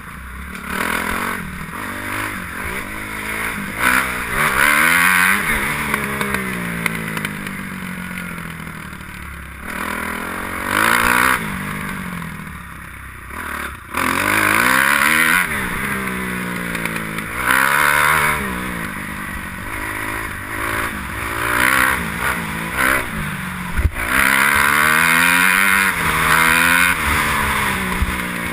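Kawasaki KX250F motocross bike's single-cylinder four-stroke engine under way, revving up and dropping back again and again as the rider works through the gears and throttle on a dirt track.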